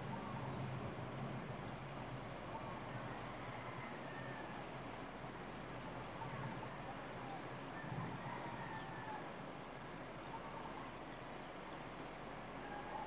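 Open-air rice-field ambience: a steady high insect trill with a few faint, short bird chirps.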